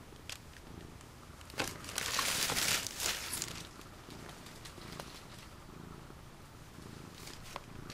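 Thin plastic shopping bag rustling and crinkling as a boxed camera is pulled out of it, loudest for about a second and a half near two seconds in, with a few small clicks, then only faint low background.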